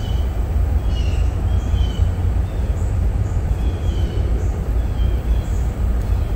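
Steady low rumble of wind buffeting the microphone, with a small bird chirping briefly several times.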